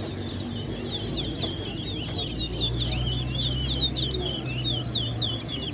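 Towa towa seed finches singing in a song-count contest: a fast, unbroken stream of short, high, sweeping whistled notes. A low steady hum runs underneath through the middle.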